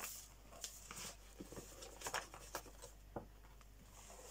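Paper flour bag rustling and crinkling as it is handled, in short, faint, scattered crackles.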